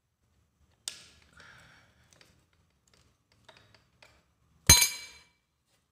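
A thin metal tool knocking and clinking against an angle grinder's cutting disc and lock nut: a sharp click about a second in, a few small ticks, then a loud metallic knock that rings briefly near the end.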